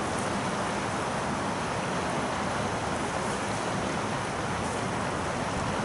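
Steady rushing of river water, an even noise that does not change.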